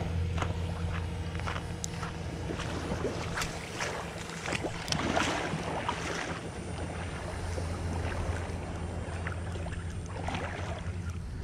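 Steady low hum of a boat engine, over gentle swishes and small splashes of shallow water at the shoreline.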